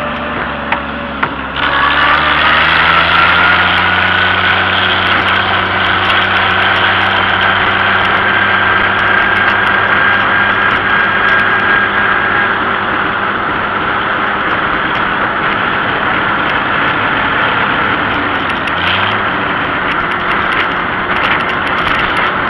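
Old farm tractor engine running under way, heard from on board. About a second and a half in, the engine speeds up and its pitch rises, then it holds a steady road speed.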